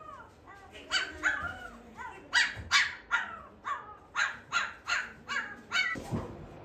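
A weaning-age Shiba Inu puppy howling: a run of short, high yips that each rise and fall in pitch, two or three a second, for about five seconds.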